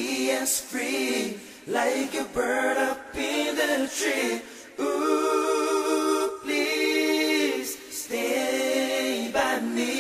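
Vocal group singing a cappella in close harmony: several voices holding long chords, phrase after phrase, with no instruments.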